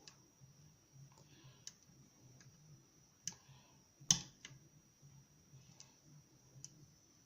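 Lock pick and tension wrench working the pins of a challenge lock: scattered light metallic clicks and ticks, the sharpest a little over three and four seconds in.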